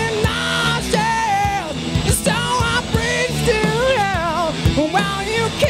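Live rock band playing: a male lead singer sings a gliding, held melody over electric guitars, bass and drums.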